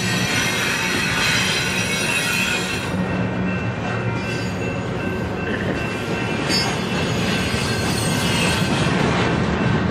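Union Pacific intermodal freight train's cars rolling past, a steady rumble of steel wheels on the rails with high wheel squeal, strongest in the first few seconds.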